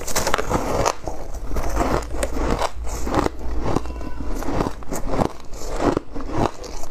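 Close-miked crunching of freezer frost ice: a bite into a frosty chunk, then chewing with many quick, irregular crunches.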